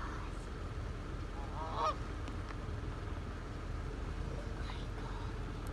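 A goose honks once, about two seconds in, over a steady low rumble.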